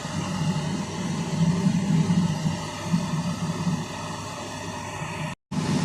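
Steady low mechanical hum with a hiss over it, cutting out completely for a moment near the end.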